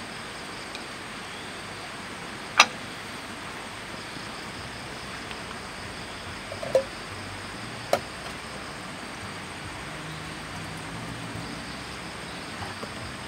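A steady hiss, with a sharp clack about two and a half seconds in and two lighter knocks around seven and eight seconds in, as camp cookware and a bottle are handled on a table.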